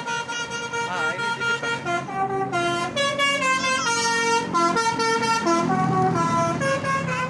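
Indonesian bus 'telolet' musical air horn playing a tune: held notes that jump up and down in pitch, several tones sounding together. A bus engine runs low underneath, louder in the second half.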